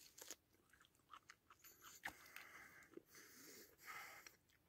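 A man chewing a bite of raw elk heart: faint chewing with short clicks and smacks, loudest between about two and four seconds in.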